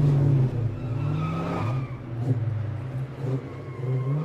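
A car engine running, its pitch rising and falling.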